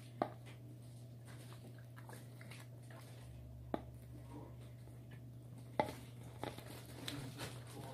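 Tufted capuchin monkey drinking from an empty plastic soda bottle: a few light clicks and taps of the plastic against its teeth and hands, over a steady low hum.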